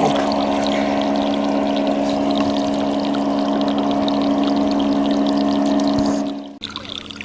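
A boat's motor running with a steady drone, its even hum cutting off abruptly about six seconds in. Quieter trickling water and small splashes follow.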